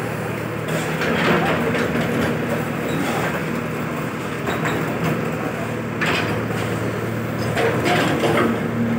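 JCB backhoe loader's diesel engine running steadily while it digs, with several rough scraping sounds as the bucket works into the soil and stones.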